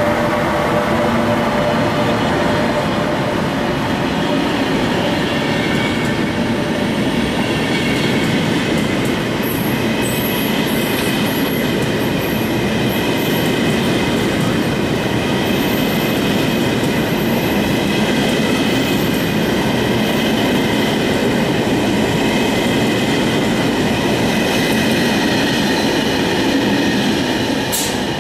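Passenger train of Russian Railways coaches behind an E402B electric locomotive rolling steadily past along the platform. A high metallic squeal from the running gear sets in from about eight seconds in.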